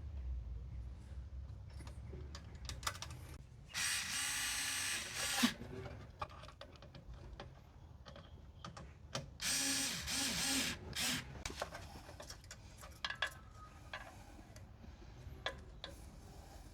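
Cordless power screwdriver tightening the hose clamps on a diesel heater's exhaust and air-intake fittings: two short runs of about a second and a half each, with clicks and handling of parts in between.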